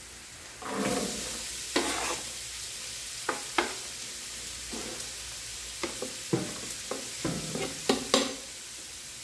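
Chopped onion going into hot oil and browning garlic in a large aluminium pot, the oil sizzling from about a second in. A knife scrapes the onion off a plastic cutting board, with sharp clicks and taps scattered through.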